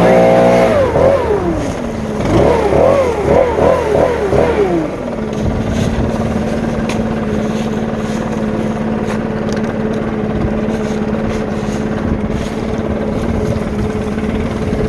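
Stihl BR600 backpack leaf blower engine revved on the throttle, first once, then in a run of about five quick blips. A little before halfway it drops back to a steady idle.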